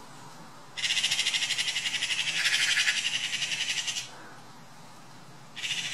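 Eurasian magpie giving its rapid, rattling chatter for about three seconds, starting just under a second in. A second burst starts near the end. It is an alarm chatter, mobbing a sparrowhawk on its kill.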